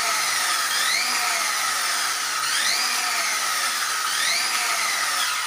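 Arrma Mojave 6S BLX's brushless motor and drivetrain whining at high revs with the wheels spinning free off the ground. The pitch rises and sags several times as the throttle is pushed toward full.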